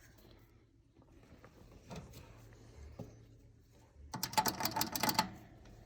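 A few faint knocks, then about a second of rapid mechanical clicking and rattling, over a low steady hum.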